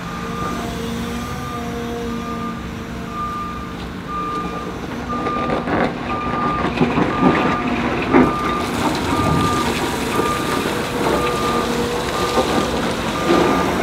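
Heavy-equipment backup alarm beeping about once a second over a steadily running machine engine. From about six seconds in, sharp knocks and clatter join it.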